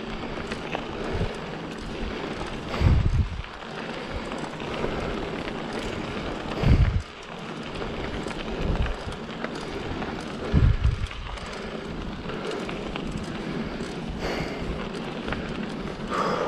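Wind buffeting the microphone of a handlebar-mounted action camera on a moving mountain bike, over a steady rush of tyres rolling on a dirt fire road with light rattles. Loud low gusts come about three, seven and eleven seconds in.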